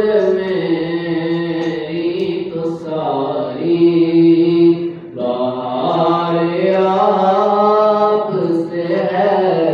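A man's solo voice singing a naat, a devotional song in praise of the Prophet, unaccompanied and amplified through a microphone. It is sung in long, held, ornamented phrases, with a brief pause for breath about halfway through.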